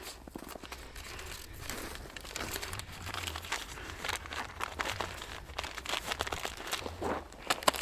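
Foil packet crinkling and rustling in rubber-gloved hands as it is torn open and a white pad is pulled out, a steady run of short, irregular crackles.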